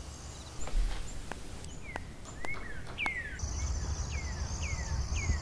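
Crickets trilling steadily at night, giving way to a songbird repeating clear whistled notes that slide down in pitch, about two a second, over a steady high insect drone.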